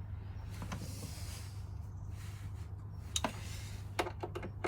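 A person breathing out heavily twice, with a few light clicks and knocks of handled parts, over a steady low hum.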